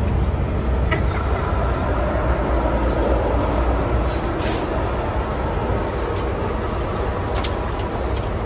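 Steady low rumble of city street traffic, with a short hiss about four and a half seconds in.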